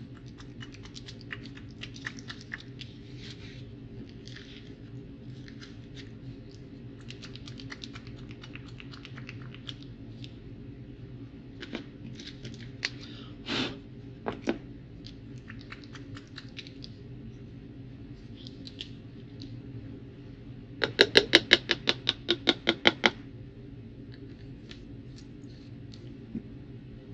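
Tabletop handling of painting supplies: scattered soft taps and scratches, a couple of louder knocks, then a quick run of about a dozen sharp clicks, roughly six a second, about two-thirds of the way through.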